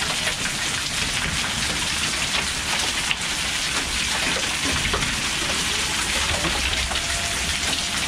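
Heavy rain mixed with small hail falling onto a wet concrete walkway, a steady dense downpour with many small sharp hits throughout.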